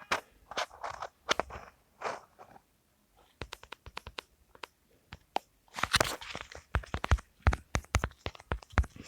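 A run of short, irregular crunches and clicks, sparse at first and coming thick and fast in the second half, with a louder crunchy burst about six seconds in.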